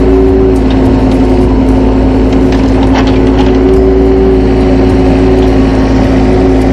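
Engine of heavy earthmoving machinery running steadily under work, with a few scattered sharp knocks and cracks.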